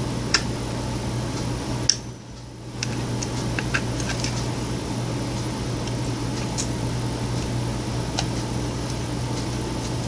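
Steady low hum and hiss of room noise, dropping away for a moment about two seconds in, with a few faint clicks and taps from scissors and a plastic light-switch cover being handled.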